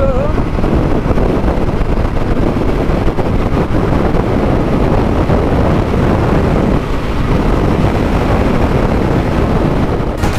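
Wind buffeting the microphone of a camera on a Honda CRF250L motorcycle riding at road speed, a loud steady rush.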